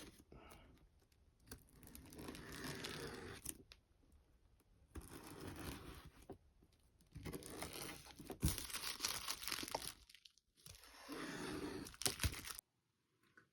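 Model kit packaging being opened and handled: several separate bursts of crinkling, rustling and tearing, with a few sharp clicks.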